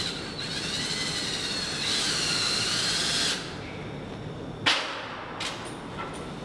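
Cordless drill running for about three seconds, its whine wavering up and down in pitch, followed a little over a second later by one sharp knock and a few faint clicks.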